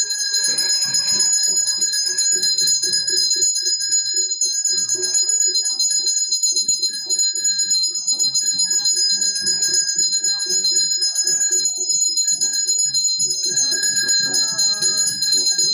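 Bells ringing without a break, high and steady, over a fast, even beat of short drum-like strokes.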